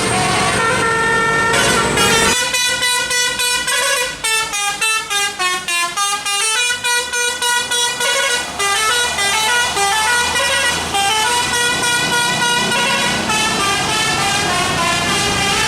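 Bus 'telolet' musical air horn playing a melody, first a few held notes, then from about two seconds in a fast string of short notes running down and back up the scale. Engine rumble underneath.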